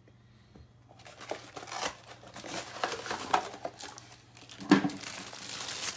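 Plastic bag wrapping a new washing-machine drain pump crinkling and rustling as it is handled, starting about a second in, with one sharper, louder crackle near the end.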